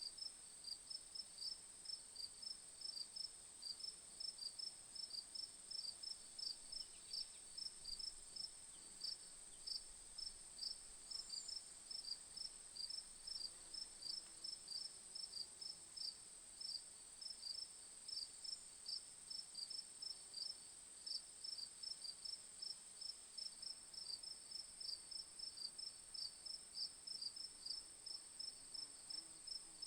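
Crickets chirping: a fast, regular run of short high chirps, about two or three a second, over a steady high insect trill.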